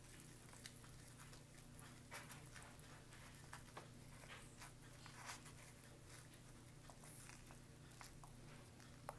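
Near silence: faint crinkling and soft ticks from a foil MRE retort pouch as cold noodles are squeezed out of it onto a plastic tray, over a low steady hum.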